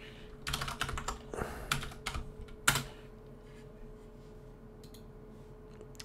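Typing on a computer keyboard: a quick run of keystrokes over the first three seconds, ending in one sharper click, then only a faint steady hum.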